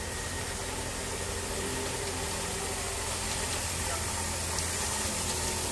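Engine of a miniature railway locomotive running steadily as the train passes, growing slightly louder, over the constant rush of a fast-flowing stream.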